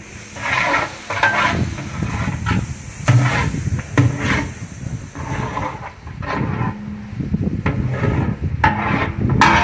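Long metal ladle stirring meat and masala in a large metal biryani pot, in repeated strokes about once a second, scraping through the thick mixture, with a light sizzle from the frying masala.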